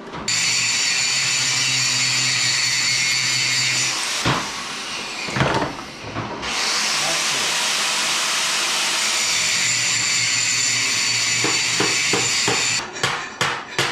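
Power drill boring out spot welds in a steel car sub rail, running steadily in two long bursts. It stops briefly for a few knocks, and a quick series of metal knocks comes near the end.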